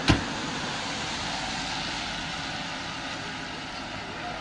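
A single sharp knock just after the start, then a steady, even rush of outdoor background noise.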